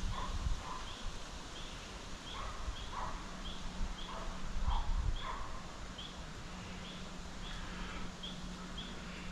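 A bird calling in the woods with short high chirps repeated about twice a second, mixed with lower falling notes. A couple of low thumps sound near the start and about five seconds in.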